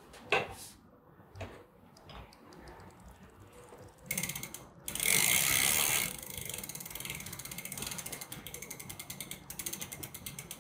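A few light knocks from the pedal wrench in the first two seconds, then the cranks are spun by hand, the chain running over the rear cogs. The e-bike's rear wheel then coasts with its 7-speed freewheel ratchet clicking rapidly and evenly.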